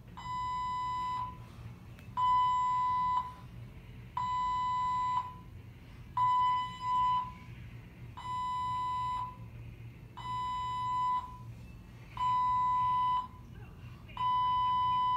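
Hospital bedside alarm beeping: a steady one-second tone every two seconds, sounding on and on. It is an alert calling for a nurse to come and check the device, left unanswered for half an hour.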